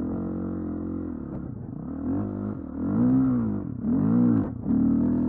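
Dirt bike engine running under throttle, steady at first, then revving up and down three times in quick succession and held at higher revs near the end.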